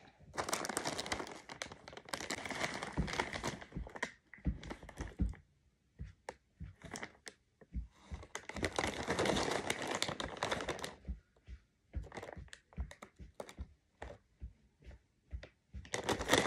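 A plastic cat-treat bag being crinkled and rustled, in two longer bursts of crackling with scattered small ticks and taps between them.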